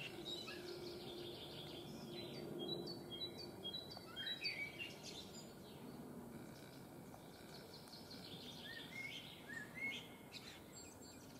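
Wild songbirds singing and calling over faint steady background noise: short rising whistles and quick runs of repeated high notes, in one spell a couple of seconds in and another near the end.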